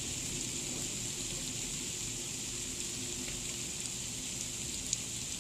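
Steady hiss of freezing rain falling outside the window, with a single sharp tick near the end.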